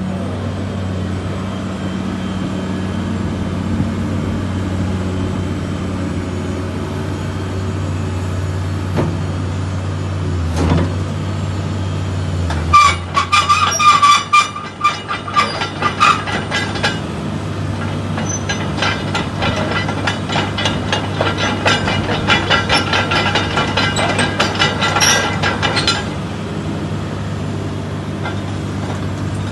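Caterpillar 325CL excavator's diesel engine idling steadily. About halfway through, a long stretch of rapid metallic clattering and squealing begins; it stops again a few seconds before the end.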